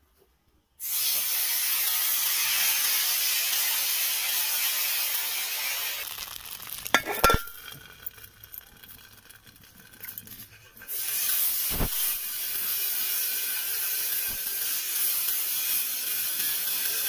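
Rice batter sizzling in a hot oiled iron kadai, a loud steady hiss that starts suddenly about a second in as the batter hits the pan. About halfway through, metal clinks as an aluminium plate is set on as a lid, and the sizzle drops. The sizzle returns loud a few seconds later.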